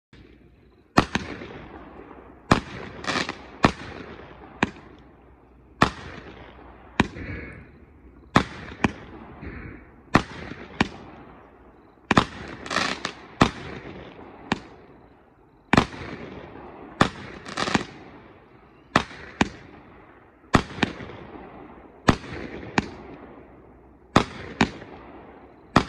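A 200-gram consumer fireworks cake (Illuminati Fireworks' 'Stop Tyranny') firing shot after shot, starting about a second in. It gives a rapid series of sharp reports, roughly one to two a second and some in quick pairs, each with a short fading tail.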